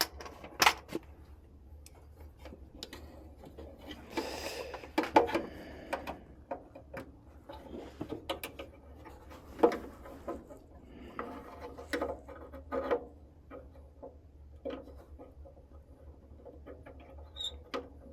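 Scattered clicks, knocks and rubbing of hands handling furnace parts during reassembly, with a short stretch of rustling about four seconds in.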